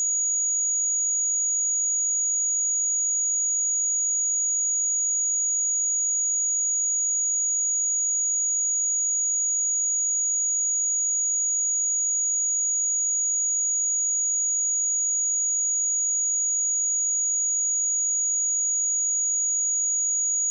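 A steady, high-pitched pure sine-wave test tone at 6774 Hz, held unchanged at one level.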